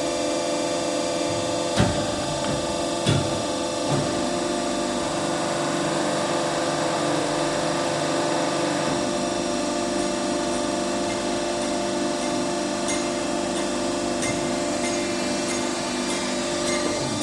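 Hydraulic cylinder test bench running with a steady hum and whine from its hydraulic power unit while a double-acting telescopic cylinder is tested. A few sharp metallic knocks in the first four seconds and light clicks near the end.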